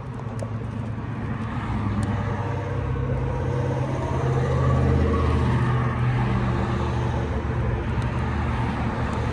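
A motor vehicle's engine running with a steady low hum, growing louder over the first few seconds and then holding steady.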